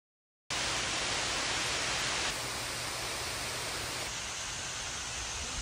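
Steady rush of falling water from a waterfall, an even hiss that starts about half a second in and drops slightly in level twice.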